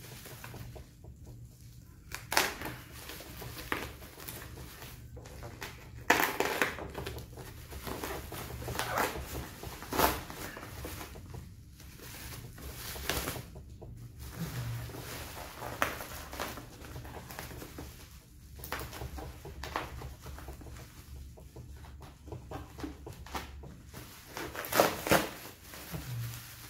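Black plastic bubble wrap being slit with a box cutter, then torn and pulled off a parcel: irregular crinkling and rustling with sharp crackles now and then.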